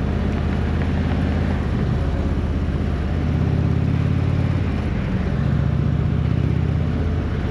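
Indian touring motorcycle's V-twin engine running in slow, heavy traffic while filtering between lanes. The engine note strengthens twice for a second or two as the throttle is opened, over a steady rush of wind and road noise.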